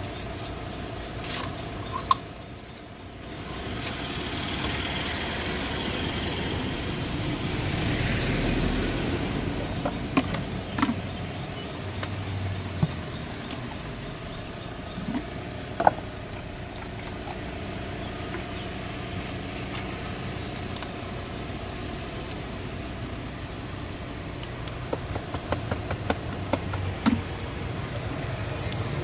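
Street ambience: a passing vehicle swells and fades a few seconds in over a steady hum. Scattered sharp clicks and clinks of plastic cups and a spoon come through, more often near the end as a drink is stirred.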